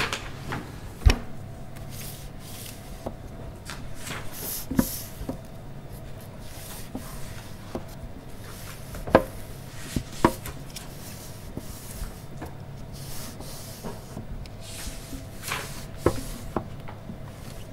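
Library stacks ambience: scattered soft knocks and taps and a few short rustles over a steady low hum.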